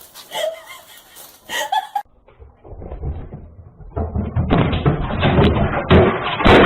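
A rapid, loud clatter of knocks and bangs that builds up in the second half.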